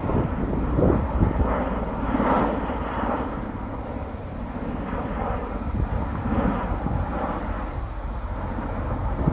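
V-22 Osprey tiltrotor flying overhead: the low rumble of its twin proprotors and turboshaft engines, swelling and easing slightly as it circles.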